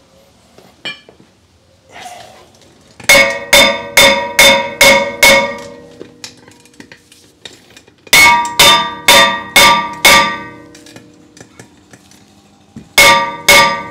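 Hammer blows on a 2015 Jeep Grand Cherokee's old cast-iron front brake rotor to knock it loose from the hub, with the rotor ringing like a bell after every strike. The loud blows come in three quick runs of several strikes a second, about three, eight and thirteen seconds in.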